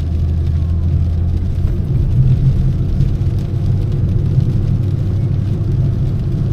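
Car engine and road noise heard from inside the cabin while driving on a wet road: a steady low hum, its pitch stepping up about two seconds in.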